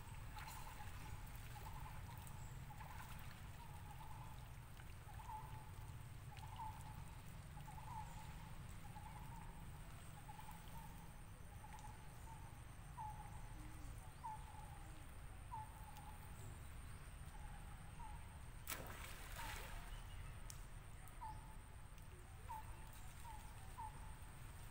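Quiet outdoor ambience: a short chirp repeating about once a second over a steady thin high tone and a low rumble. About three-quarters of the way through comes a brief rush of noise.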